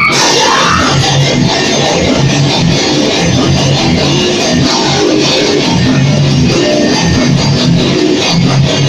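Metal band playing live in a rehearsal room: heavily distorted electric guitar over a drum kit, loud and unbroken.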